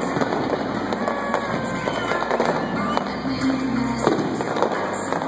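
Fireworks finale: many aerial shells bursting in quick succession, a continuous run of bangs and crackling.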